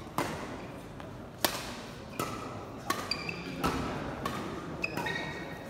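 Badminton rackets striking a shuttlecock in a fast rally: a string of sharp cracks, about one every half second to a second. Short, high squeaks of court shoes on the floor come in the second half.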